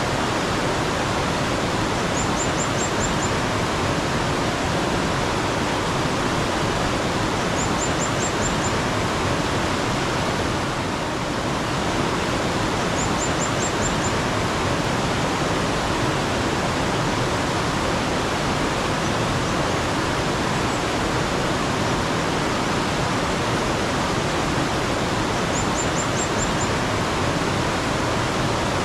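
Water flowing in a steady, even rush, with a bird giving a short run of about five quick high chirps four times.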